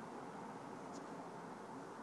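Faint steady hiss of room tone, with a single faint tick about halfway through.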